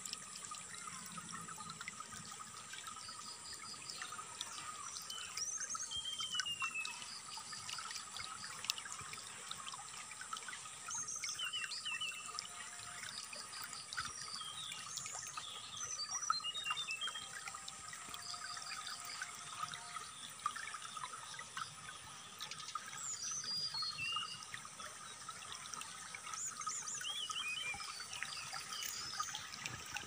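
Stream water trickling steadily. Short bird chirps, quick runs of high notes and brief falling whistles come and go on top of it.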